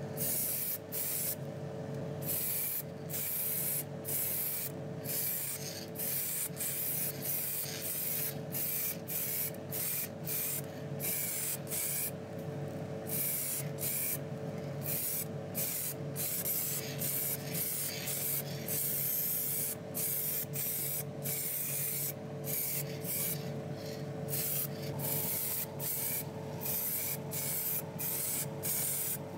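Paint spraying in short hissing bursts, about one or two a second with brief gaps between them, over a steady hum.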